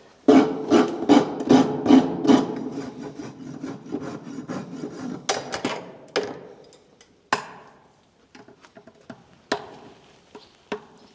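Farrier's rasp filing a horse's hoof in quick, even strokes, about two or three a second. After a few seconds it thins out into scattered strokes and a few sharp knocks.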